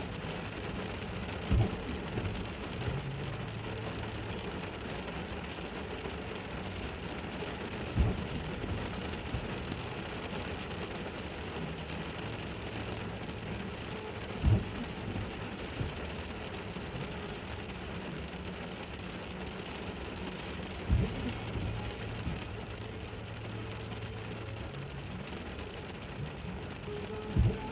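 Steady rain hiss with a short low thud about every six and a half seconds and low sustained tones underneath.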